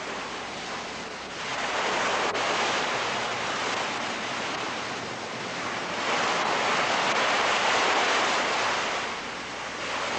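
Sea surf: waves wash in twice in long swells of rushing noise and ease off between them.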